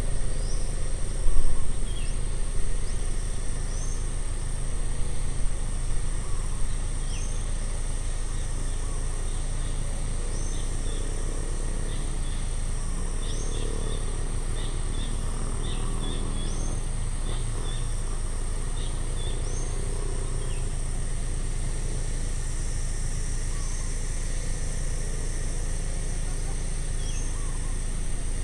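Outdoor ambience: a bird repeats a short, rising chirp every few seconds over a steady high insect buzz and a low, steady rumble. A run of quick chirps or ticks comes around the middle.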